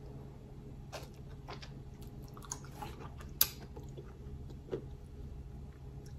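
Quiet mouth-closed chewing of a tomato slice, with a few small clicks, the sharpest about halfway in, over a steady low hum.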